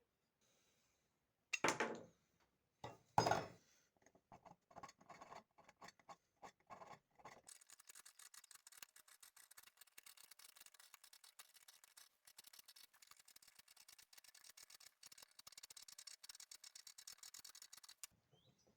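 Two sharp knocks, then a run of short scraping strokes that speeds up into fast, continuous high-pitched scraping on a cabinet rasp; it stops abruptly near the end.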